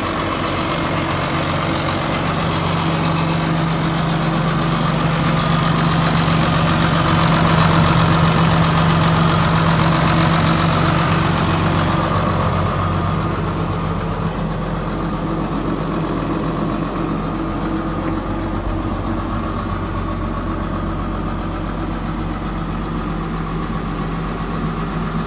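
2006 New Holland TM175 tractor's six-cylinder diesel engine running at a steady idle. About halfway through the sound turns duller, with less hiss, as it is heard from inside the cab.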